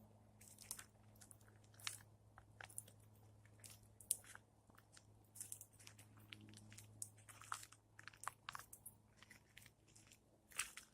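Squirrel gnawing and chewing food: irregular small crunches and clicks, over a faint steady low hum.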